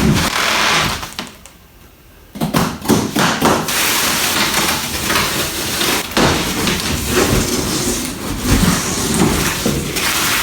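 Handling noise: repeated knocks and taps with rustling, with a brief lull about a second in.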